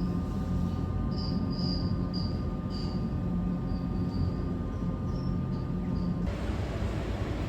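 Rail car running, a steady hum with short high squeaks scattered through it; about six seconds in, the sound changes abruptly to an even rushing noise.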